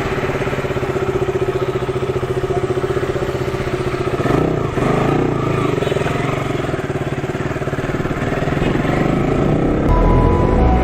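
KTM RC 200's single-cylinder engine running steadily, its note shifting about four seconds in. Music comes in near the end.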